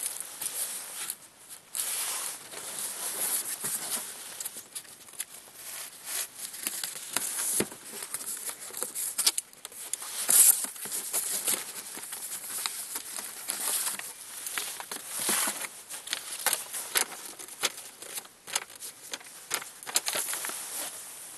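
A folding knife slicing through a cardboard shipping box, then cardboard flaps being pulled open and paper and packing being handled, in irregular scrapes, tears and rustles.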